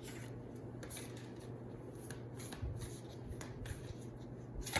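Tarot cards being shuffled and handled by hand: a run of soft papery flicks and rustles, over a faint steady low hum.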